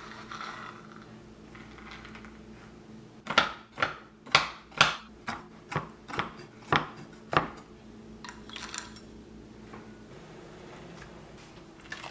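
Roasted peanuts tipped with a short rattle onto a wooden cutting board, then chopped with a chef's knife: about ten sharp knocks of the blade on the board, roughly two a second, for about four seconds.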